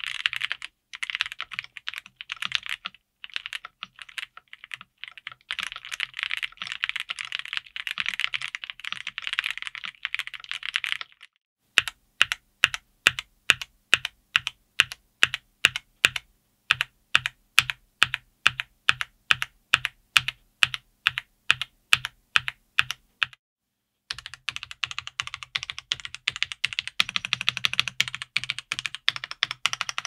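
YUNZII YZ87 gasket-mount mechanical keyboard with YUNZII Milk linear switches and PBT double-shot keycaps being typed on quickly. About eleven seconds in, the typing changes to single keystrokes at an even pace of about two to three a second. After a short pause near the middle, fast typing resumes.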